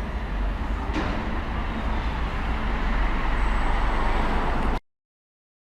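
Enviro400 hybrid double-decker bus running with road-traffic rumble, a deep steady drone that grows louder about three seconds in, with a short click about a second in; the sound cuts off abruptly near the end.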